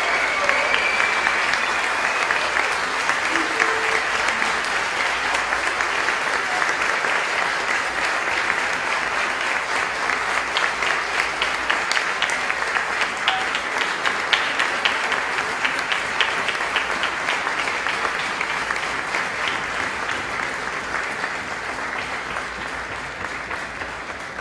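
Audience applauding steadily, a dense patter of many hands, with some sharper single claps standing out in the middle and the level easing slightly toward the end.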